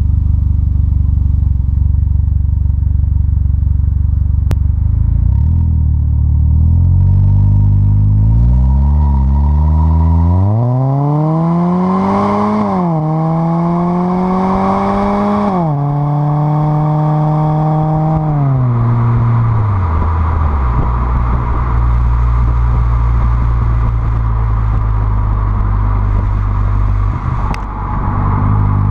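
Exhaust note of a 2010 Ford Fusion's 2.5-litre four-cylinder through a custom exhaust, heard right at the tailpipes. It runs low and steady at first, then rises in pitch as the car pulls away. Two sudden drops in pitch come a little before and after halfway through at upshifts, and it then settles into a steady lower drone at cruise.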